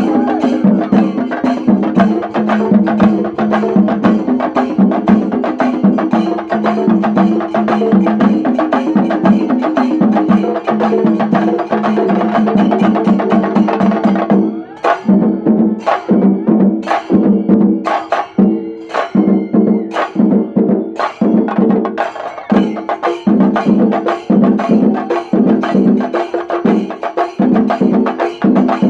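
Shinkarimelam ensemble of massed chenda drums beaten with curved sticks, with ilathalam cymbals, playing a dense, continuous roll of strokes. About halfway through, the roll breaks into separate, spaced strokes with short gaps. After several seconds it thickens back into a dense roll.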